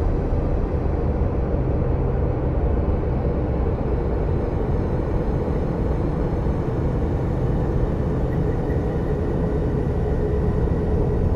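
Deep, steady rumbling ambient drone in the style of 'planet sounds from space', with a faint high tone joining about eight seconds in.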